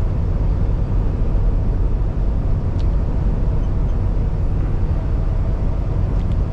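Steady low rumble of a Kenworth T680 semi truck's Paccar MX13 diesel engine and road noise, heard from inside the cab while cruising along a highway.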